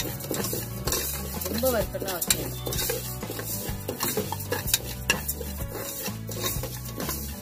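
A steel spoon stirring dry split moong dal in an aluminium pressure cooker as the lentils are dry-roasted, with repeated scraping strokes against the pan and the grains rustling.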